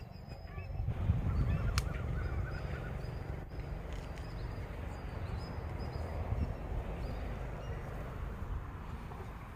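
Wind rumbling on the microphone, with small birds chirping and calling in the background.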